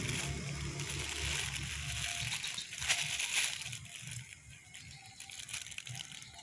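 A plastic bag holding live sepat fish (gourami) and water being handled, the plastic crinkling and the water sloshing in irregular bursts, loudest about three seconds in and quieter toward the end.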